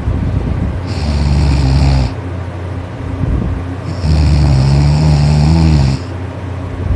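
A person snoring: two snores, each with a low buzzing pitch and a hissy edge, a shorter one about a second in and a longer one of about two seconds starting about four seconds in.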